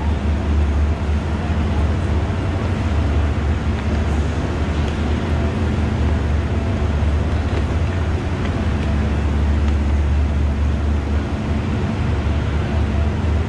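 Steady low drone of an idling diesel train at a station platform, an even engine rumble with no let-up.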